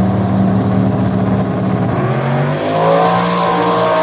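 Two drag-racing cars' engines held at steady high revs on the start line, then launching about two and a half seconds in, the engine note rising as they accelerate away down the strip.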